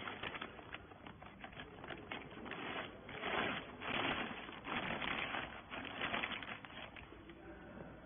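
Thin plastic bag crinkling and rustling in irregular bursts as hands work it over a compressed bale of rags, loudest around the middle.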